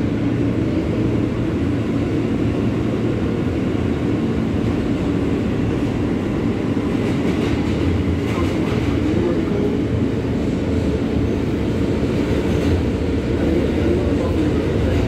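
New York City subway L train car running, heard from inside the car by the end door: a steady rumble of wheels on rail.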